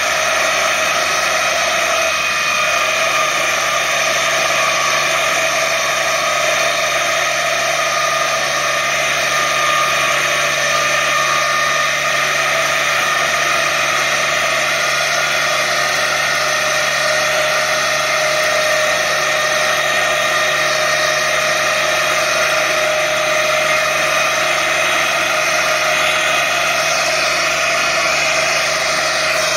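Tractor running with a PTO-driven NEWBANG DRM165 drum mower cutting dense tall grass: a loud, steady mechanical whine that holds its pitch throughout.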